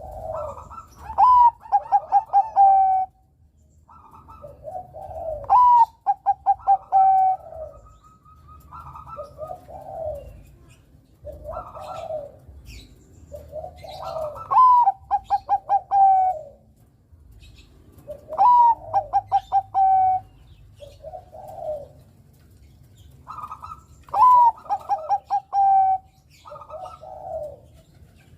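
Zebra dove (Bangkok-bred perkutut) cooing: repeated song phrases every few seconds, each a short rising note followed by a fast run of clipped coos, with shorter single coos in between.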